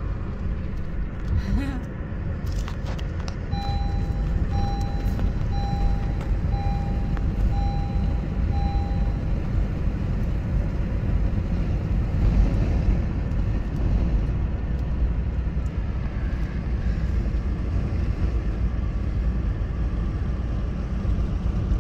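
Car cabin noise while driving: a steady low rumble of engine and tyres on the road. A few seconds in, an electronic chime beeps about six times, roughly one a second, then stops.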